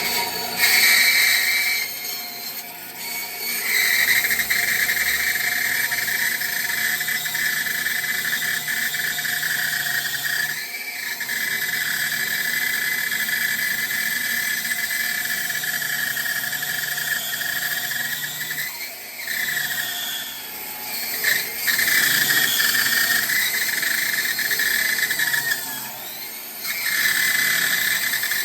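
A bandsaw cuts a curve through a block of wood. It gives a steady, high squeal that drops away briefly several times during the cut.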